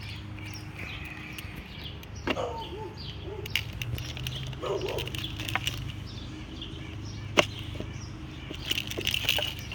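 Clicks and knocks from a bird feeder being handled and opened to let a trapped bird out, the sharpest knock about seven seconds in, with a rustling flurry near the end. Small birds chirp faintly over a steady low hum.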